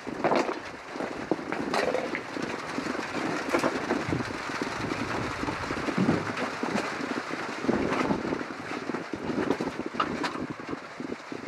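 Wind buffeting the microphone in gusty low rumbles, with scattered short crunches and knocks throughout.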